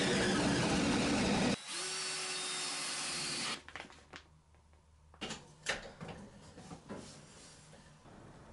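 Power drill boring into wood with a long flexible drill bit: a loud, rough drilling for about a second and a half, then the drill runs more lightly with a steady whine and stops about three and a half seconds in. A few light knocks of handling follow.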